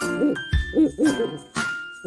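An animal's short pitched calls, about four of them, each rising and falling in pitch, over tinkling background music.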